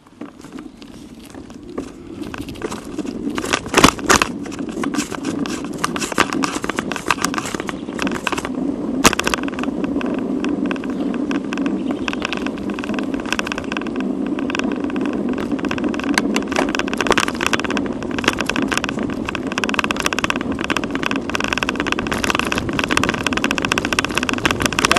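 Wind on the microphone and tyre and road rumble from a bicycle under way, building up over the first few seconds as it gets moving, then steady with a constant rattle. Two sharp knocks stand out, about four and nine seconds in.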